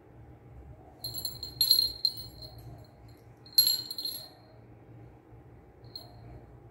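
A small jingle bell jingling as a Persian kitten paws and bats it on a stone step: a burst of jingling about a second in, another sharp burst about two and a half seconds later, and a faint tinkle near the end.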